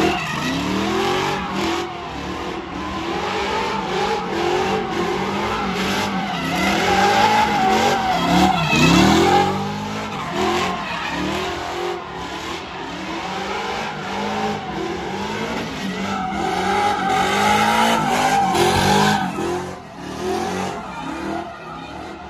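Chevrolet pickup truck doing donuts on wet pavement: the engine revs up and falls back over and over, about once a second, under continuous tire squeal and skidding.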